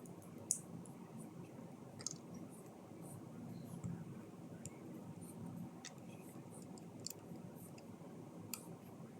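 Scattered light clicks of plastic LEGO pieces being handled and sorted, the sharpest about half a second in, over a faint low room hum.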